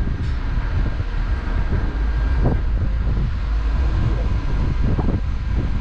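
Steady low rumble of a passenger ferry under way, with wind buffeting the microphone.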